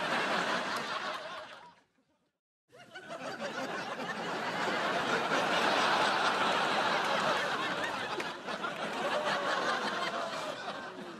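Sitcom studio-audience laughter from a laugh track: a short burst of crowd laughter that cuts off abruptly at about two seconds, a moment of dead silence, then a longer round of audience laughter that builds and slowly fades.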